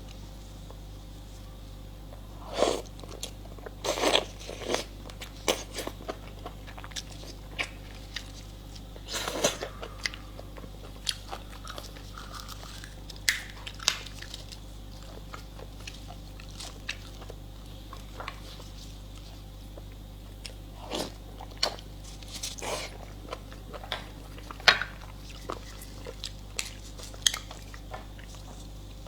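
Mukbang eating sounds close to the microphone: irregular bites, crunches, wet chewing and mouth smacks, some sharp and loud, others faint, over a steady low hum.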